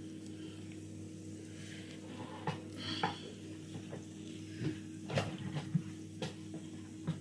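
Spoon clinking and scraping against a pot and food container as cooked jollof rice is dished out. The sharp knocks are scattered, starting about two and a half seconds in, over a steady low hum.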